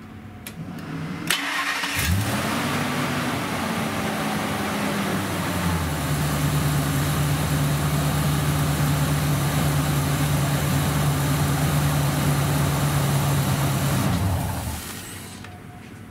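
Ford Excursion's 6.8-litre Triton V10 started after a short crank, catching about two seconds in. It runs at a fast idle that settles to a steady lower idle within a few seconds, then is switched off near the end. It is run briefly after an oil change to fill the new oil filter.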